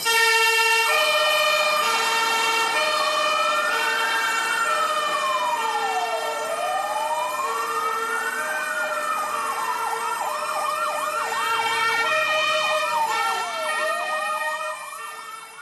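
Several fire engine sirens sounding together: a slow wail rising and falling every few seconds over an alternating two-tone siren, with a faster yelping siren joining in about ten seconds in, all cutting off just before the end.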